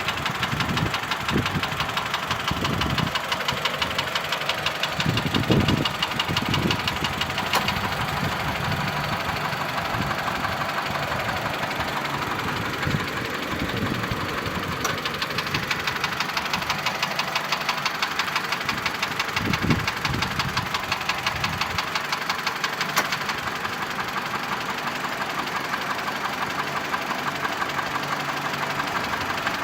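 Mitsubishi 4B11 2.0-litre four-cylinder engine idling with a constant, ringing knock, a fast even ticking. The owner does not know its cause.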